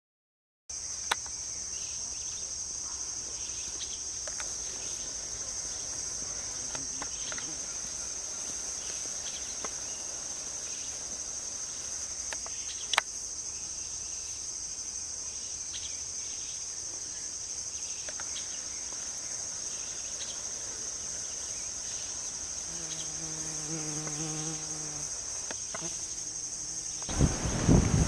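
Insects making a continuous high-pitched buzz, with a few faint clicks over it. In the last second, wind rumbles loudly on the microphone.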